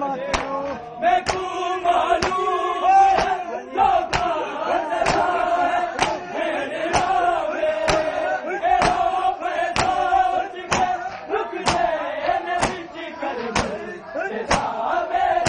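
A crowd chanting a noha (Shia lament) together, with sharp chest-beating slaps (matam) keeping an even beat of about one a second.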